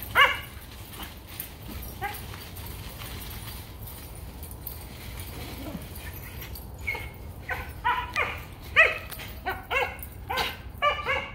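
Dog barking in play while chasing: one sharp bark at the start, another about two seconds in, then a quick run of high-pitched barks over the last few seconds.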